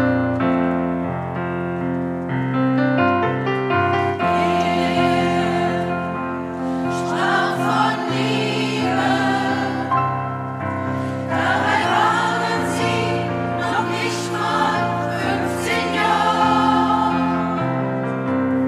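Women's choir singing with digital piano accompaniment; the piano plays alone for about the first four seconds before the voices come in.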